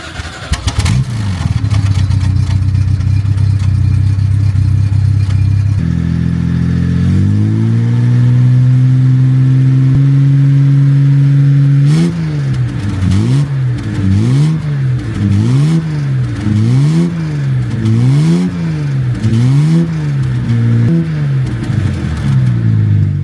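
A car engine running: it idles steadily, is raised to a higher steady speed about six seconds in, then from about halfway is revved up and let fall again and again, about once a second, before cutting off suddenly.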